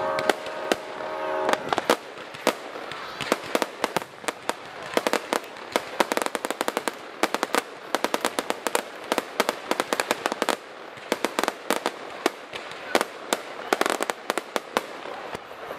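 Fireworks display: a rapid, dense run of sharp crackles and pops, many per second, mixed with heavier bangs from shells bursting into crackling stars.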